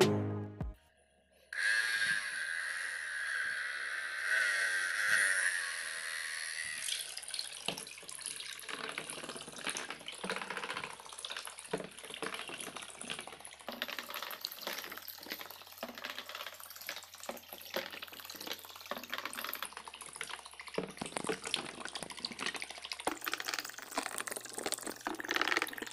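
Small DC motor spinning a plastic propeller in a tub of water, churning and splashing it as a toy boat runs. A whine from the motor stands out for the first several seconds, then the irregular splashing and sloshing of the water takes over.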